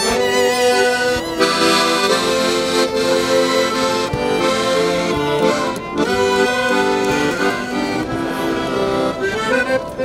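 A Weltmeister accordion playing sustained chords and melody together with violins, the accordion's reeds carrying the sound.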